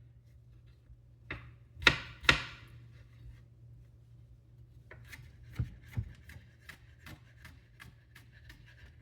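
Kitchen knife chopping garlic on a cutting board: a few sharp knocks in the first few seconds, then, from about five seconds in, a run of quicker, lighter taps as it is chopped fine.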